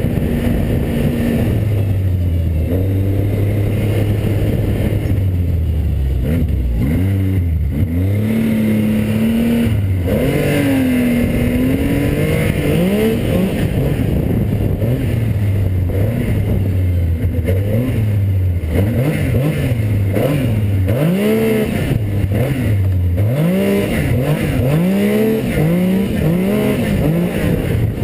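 Yamaha four-stroke snowmobile engine under way, its pitch rising and falling as the throttle is worked on and off, with quick repeated revs in the second half.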